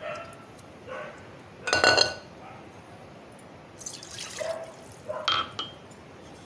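Water poured from a plastic bottle into a ceramic pot, splashing and dripping, with a few sharp clinks; the loudest comes about two seconds in.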